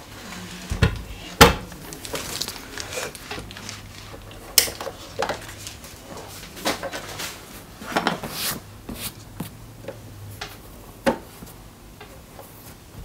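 Handling clatter from a Xiaomi Mi Body Composition Scale 2 and its plastic battery cover being unclipped: a string of knocks, taps and plastic clicks, the loudest a thump about a second and a half in.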